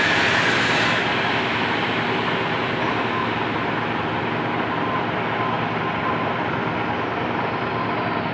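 Metal lathe running with a center drill cutting a center hole into the end of a turning steel shaft: a steady machine drone, with a harsher hiss in about the first second.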